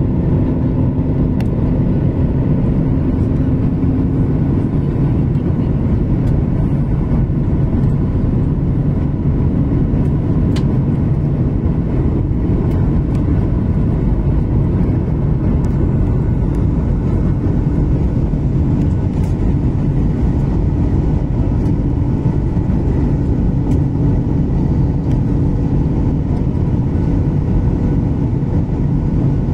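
Cabin noise inside a Boeing 737 MAX descending on approach: the steady rush of airflow and drone of its CFM LEAP-1B turbofan engines, with a faint steady hum.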